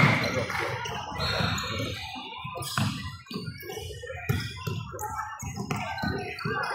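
Basketball play on a hardwood gym floor: irregular thuds of running feet and a bouncing ball, with low background noise from the hall.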